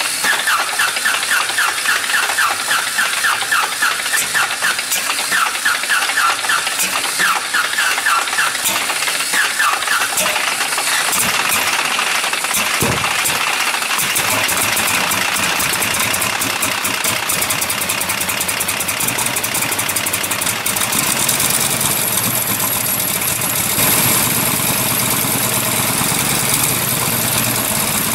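Jacobs R-755-9 seven-cylinder radial aircraft engine, turning a wooden test club propeller, on its first start: it fires roughly and unevenly at first, settles into steadier running about halfway through, and picks up speed near the end.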